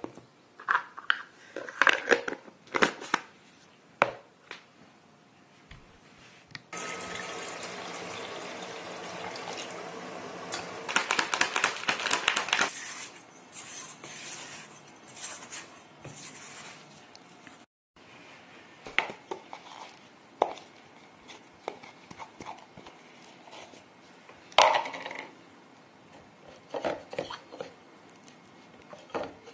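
Kitchen utensil sounds: a plastic tub handled with light taps and clicks, then a spatula and a spoon scraping and knocking against a stainless steel mixing bowl as dough and yeast starter are mixed. A steady hiss runs for about six seconds in the first half, ending in a flurry of rapid scraping clicks, and a single sharp knock on the bowl stands out later.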